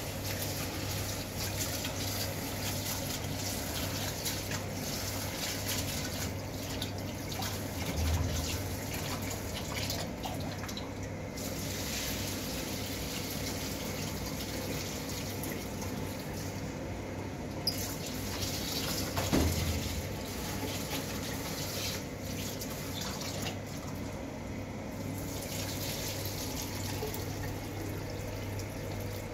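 Kitchen tap running into a plastic basin as rice is rinsed in it, with water splashing and sloshing; the flow thins or pauses briefly a few times. Two dull knocks of the basin, about 8 and 19 seconds in, are the loudest moments.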